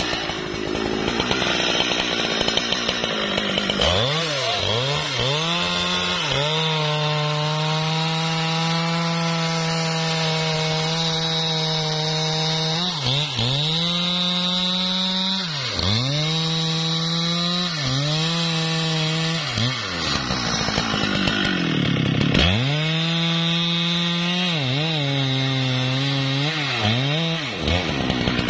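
Husqvarna 395 XP two-stroke chainsaw cutting wood, its engine held at high revs under load. Several times, near the start and again through the middle and end, the pitch drops sharply and climbs back as the throttle is eased and reopened.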